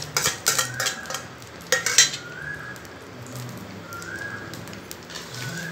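Metal utensil clinking and scraping against a frying tawa several times in the first two seconds, with the loudest knock about two seconds in, over a buttered sandwich sizzling faintly. After that only the faint sizzle remains, with a soft call repeating about every one and a half seconds in the background.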